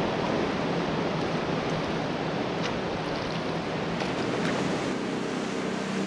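Sea surf washing over a rocky shoreline: a steady rush of breaking water.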